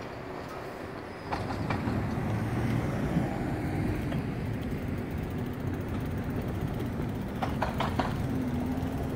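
Two-car CAF light rail train running past over the grade crossing: a steady rolling rumble that comes up about a second in, with quick clusters of wheel clicks as the trucks cross the rail joints, once near the start and again near the end.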